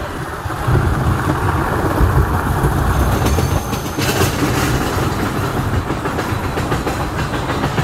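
Mine train roller coaster rumbling along its track, then about halfway through engaging the chain lift hill and climbing it with a rapid, even clicking.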